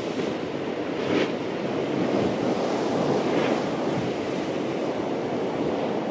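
Steady rushing noise, like surf or wind, swelling gently a couple of times.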